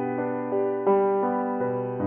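Background keyboard music: single notes struck one after another, each ringing and fading, in a slow, gentle melody.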